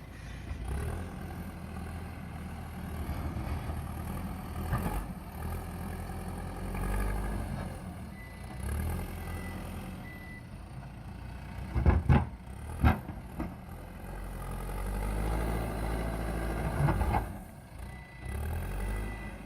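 JCB backhoe loader's diesel engine running and revving up and down as the machine works, with two sharp loud knocks about twelve and thirteen seconds in. A thin, high reversing-alarm beep comes in briefly near the middle and again near the end.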